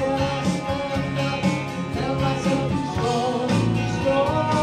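A band playing a song live: electric guitar and drums, with a man singing lead.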